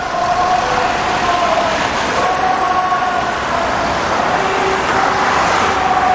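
Convoy of loudspeaker vans and trucks driving past: steady engine and tyre noise, with a faint, slowly wavering tone over it and a brief high tone about two seconds in.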